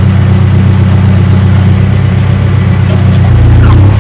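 Heavy engine idling close by with a steady low throb; just past three seconds in it swells louder and deeper for about half a second, then settles back to idle.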